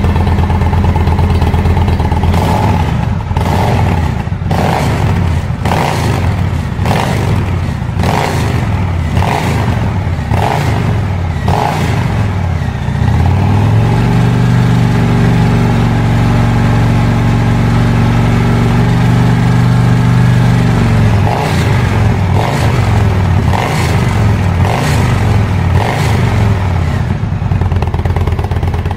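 Indian Chieftain V-twin through V-Performance twin slip-on mufflers: a string of quick throttle blips about once a second, then a rev held steady for about eight seconds, then more quick blips.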